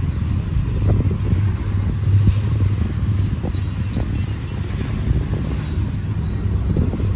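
Union Pacific double-stack freight train cars rolling slowly past: a steady low rumble with a few light clicks.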